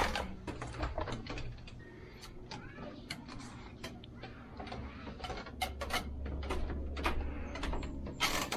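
Irregular clicks and knocks from things being handled, over a low rumble that swells for a couple of seconds past the middle.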